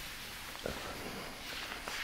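Close-miked eating sounds of a person chewing shakshuka and cheesy naan. There is a light click about half a second in and a few more near the end.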